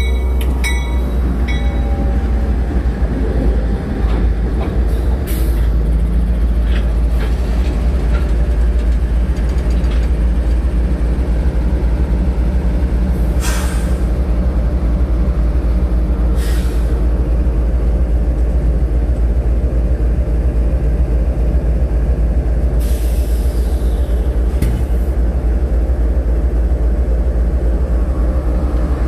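Two GE ES40DC diesel-electric locomotives rolling slowly past at close range, their V12 diesel engines running with a loud, steady low rumble. A few short hisses come through partway along.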